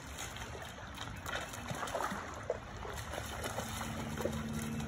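Shallow creek water trickling, with small, scattered splashes in the middle stretch.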